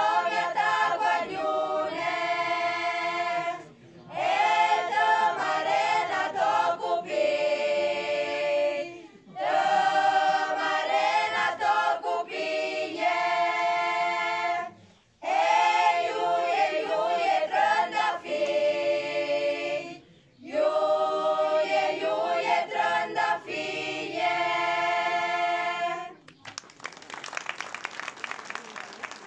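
A choir of young women singing unaccompanied, in phrases with short pauses between them. About 26 seconds in the singing ends and the audience applauds.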